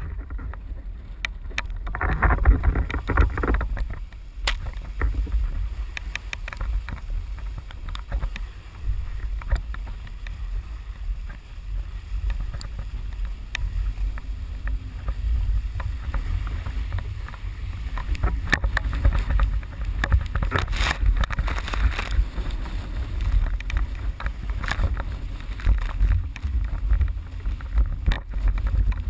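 Wind buffeting the microphone in a heavy low rumble, while a sailing board skims over choppy water with irregular slaps, knocks and splashes of spray.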